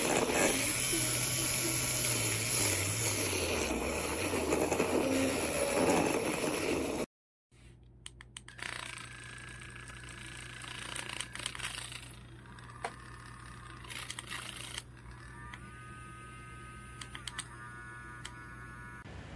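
Handheld electric milk frother's small motor running. For the first seven seconds it whisks in liquid, loud and churning, with a low hum. After a brief silence it spins freely in the air with a quieter steady hum and a few light clicks.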